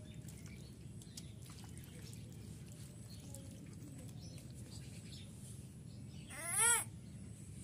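A single short bird call about six seconds in, over a steady low background hum and a few faint clicks.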